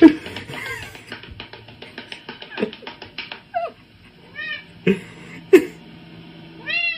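A hand rapidly patting a domestic cat's rump at the base of its raised tail, a quick run of slaps lasting about three seconds. When the patting stops the cat meows three times, with two louder thumps in between.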